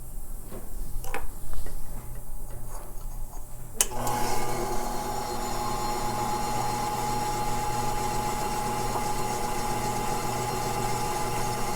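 Light clicks and taps of handling, then about four seconds in a click as a faceting machine switches on and its motor and spinning lap settle into a steady hum.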